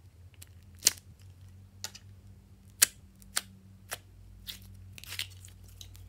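Thick green slime squeezed and peeled out of its container, giving a string of sharp sticky pops and clicks that turn into denser crackling squelches in the second half, over a low steady hum.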